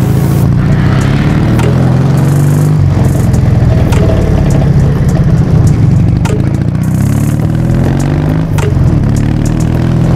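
Dnepr MT motorcycle's flat-twin engine running under way, its pitch rising twice as it revs up and easing off in between, with short sharp knocks now and then.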